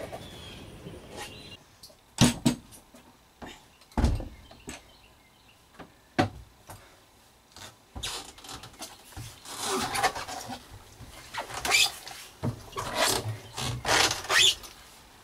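Scattered knocks on a boat, with one heavy thump about four seconds in. Then, from about eight seconds, a run of footsteps, scuffs and knocks as someone comes down the wooden companionway steps into the cabin.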